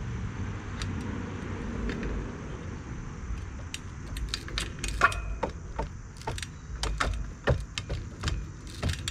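24-inch Echo trials bike hopping and balancing on a wooden pallet: a string of sharp clicks and knocks from the tyres, chain and rims on the wood, getting busier after a few seconds, with a short ringing about five seconds in. Under the first few seconds, a steady low rumble.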